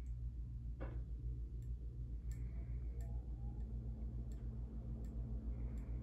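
Casablanca Delta II ceiling fan running: a steady low motor hum that pulses in an even rhythm, with faint ticks about every 0.7 seconds.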